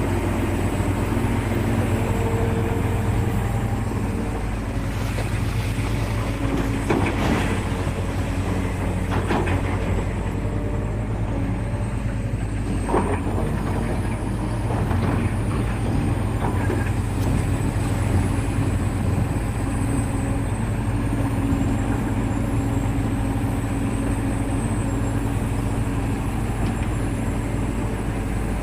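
Caterpillar 365 excavator's diesel engine running steadily under load, with shifting tones above the engine drone and several short knocks through the middle part.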